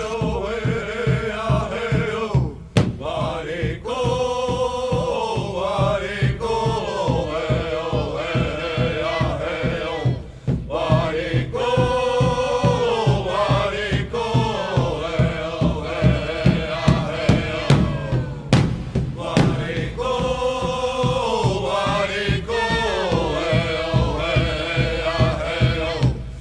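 Music with chanted singing by voices over a steady beat.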